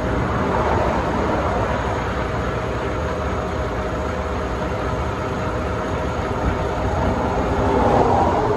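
Steady rumble of heavy freeway traffic going by, swelling near the end as a vehicle passes close.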